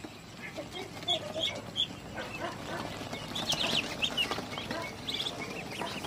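A brooder-full of ducklings peeping, many short high calls overlapping in bunches, busiest about three and a half to four seconds in.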